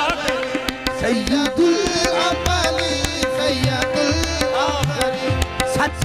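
Live qawwali music: a harmonium holding a steady note, tabla beating a quick rhythm, and a singer's voice gliding through ornamented phrases.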